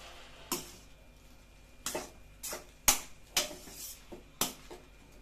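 A metal spatula clinking and scraping against a stainless steel pan as fried rice is stirred and tossed, in about nine sharp, irregular knocks. The loudest knock comes about three seconds in.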